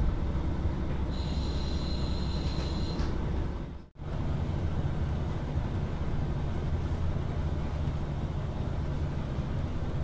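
KiHa 40 diesel railcar running, heard from inside the car: a steady low diesel engine drone with the rumble of wheels on the rails. A high squeal sounds for about two seconds near the start. The sound cuts out briefly about four seconds in, then the same running noise carries on.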